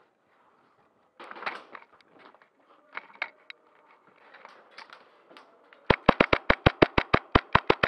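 HPA airsoft rifle with a Polar Star Jack engine firing a rapid string of about fifteen sharp shots, about seven a second, starting about six seconds in. Before it, scuffs and rustling of the player moving.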